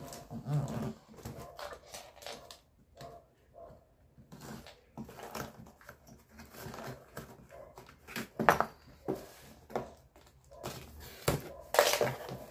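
Packing tape being peeled off a cardboard box and the box flaps pulled open: irregular tearing, rustling and cardboard scraping, with a sharp knock near the end.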